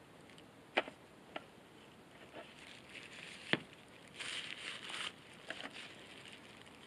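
Small winch gear parts clicking and knocking as they are handled and set down, with one sharper knock about halfway, then a short spell of disposable plastic gloves crinkling.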